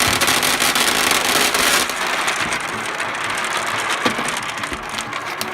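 Gumballs pouring out of a party cup and clattering onto a surface: a dense rattle of many small hard hits, heaviest in the first two seconds, then thinning to scattered rolling clicks.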